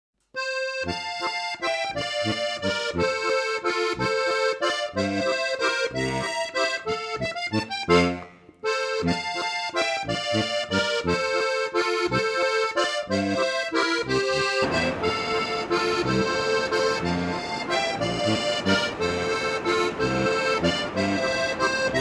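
Background music: an upbeat instrumental tune of quick, rhythmic notes, with a brief break a little past the eight-second mark.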